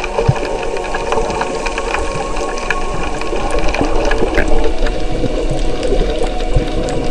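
Underwater sound picked up by a submerged camera: a steady machine-like hum with many scattered clicks and crackles through the water.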